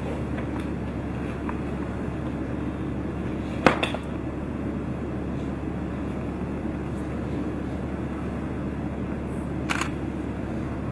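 Steady low background hum, broken by two sharp clicks: a loud one about four seconds in and a fainter one near the end.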